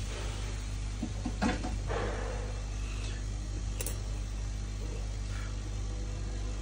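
Steady low electrical hum in a repair workshop, with a few light clicks and taps, one sharper click a little under four seconds in.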